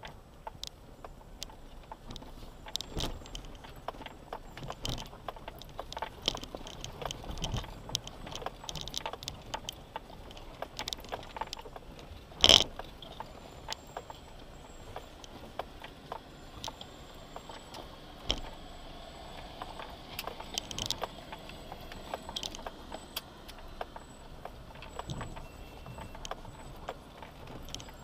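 Off-road vehicle driving over a rough gravel track, heard from inside the cabin: a continual clatter of rattles, clicks and jangles as it jolts along, with one sharp, loud knock about twelve seconds in.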